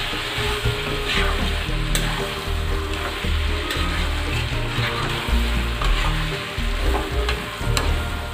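Chicken pieces sizzling in a steel kadhai as a spatula stirs through them, with a few sharp scrapes of the spatula against the pan.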